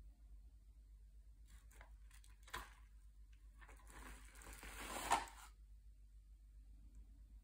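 3D-printed plastic clamshell grab bucket at work on a pile of loose granules: a few light clicks and a knock as it comes down, then its jaws closing through the pile with a rising scraping rustle for about a second and a half that ends in a sharp plastic clack a little after five seconds in.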